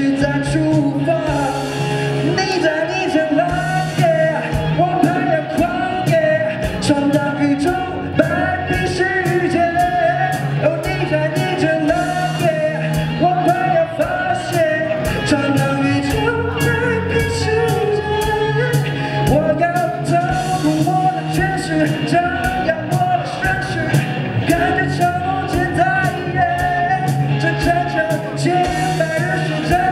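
Live rock band playing: a male singer sings over electric guitars, bass guitar and a steady drum beat.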